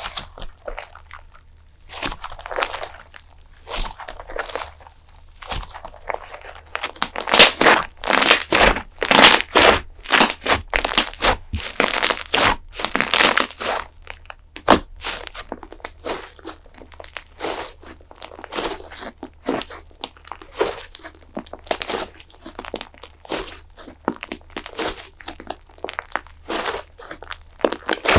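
Fluffy slime being squeezed, pressed and stretched by hand, giving irregular crackling, crunchy pops. The crackling is densest and loudest from about seven to fourteen seconds in.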